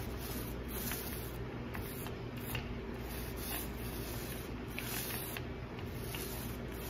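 Small paint roller rolling wet paint back and forth across a cabinet drawer front: a faint soft squishing, over a steady low hum.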